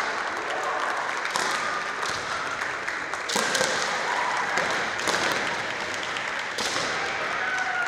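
Kendo bouts in a gymnasium: a constant patter of spectators clapping, short high-pitched kiai shouts, and about four sharp cracks of bamboo shinai strikes spaced a second or two apart.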